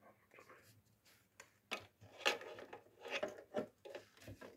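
Irregular light clicks and knocks of tools and parts being handled on an opened CRT television chassis.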